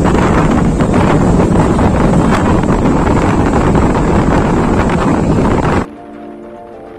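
Strong wind buffeting the microphone, a loud, rough rush. It cuts off abruptly near the end, giving way to background music.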